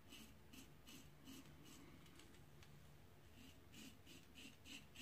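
Faint short scraping strokes of a Global Shave Club Americano double-edge safety razor, gunmetal-coated brass with a Gillette Wilkinson Sword blade, cutting lathered stubble across the grain. The strokes come about two to three a second, with a short pause midway.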